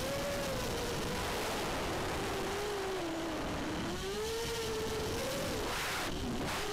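ImmersionRC Vortex 250 Pro racing quadcopter's brushless motors and propellers whining, the pitch rising and falling with the throttle, over a steady rush of air, as picked up by the camera riding on the drone. Near the end the pitch dips briefly as the throttle is eased off.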